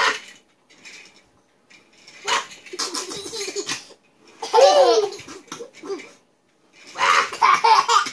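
A one-year-old toddler laughing in three bursts, the middle one a high squeal that rises and falls about halfway through.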